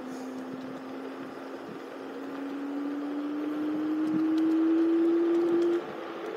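Electric scooter motor whining over wind and tyre noise. The whine rises slowly in pitch and grows louder as the scooter speeds up, then drops off suddenly near the end as the throttle eases.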